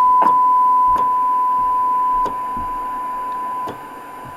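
A steady single-pitch test tone from the Cobra 29 NW LTD CB radio's speaker, the radio receiving a signal generator's modulated test signal. Several clicks from the generator's output-level attenuator, and the tone drops quieter in three steps as the test signal is turned down for a receiver sensitivity check.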